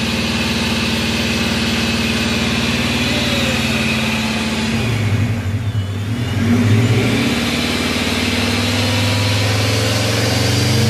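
Scion FR-S's 2.0-litre flat-four with a Vortech centrifugal supercharger, held at high revs with a loud, jet-like supercharger whine over the exhaust. About halfway through the revs dip briefly and the whine falls and rises again, then the revs are held up until they drop near the end.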